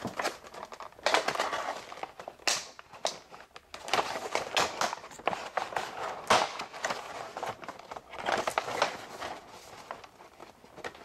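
Thin clear plastic blister packaging being pried open by hand: irregular crinkling and crackling, with sharp snaps and clicks as the clear top cover is worked loose from its plastic tray.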